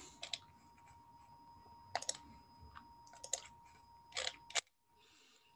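Faint clicks from a computer mouse and keyboard, in small groups through the first four and a half seconds, then near silence.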